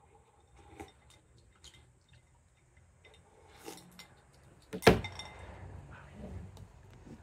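Glass bowl and chopsticks set down on a wooden floor with one sharp clink about five seconds in, the loudest sound. Before it, faint light clicks of chopsticks against the glass bowl.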